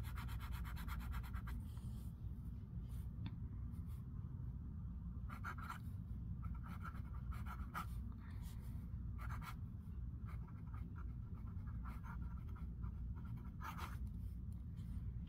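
Extra-fine 18-karat nib of a Pilot Vanishing Point fountain pen scratching on paper: a quick run of back-and-forth strokes as a swatch is scribbled at the start, then scattered short scratches of handwriting.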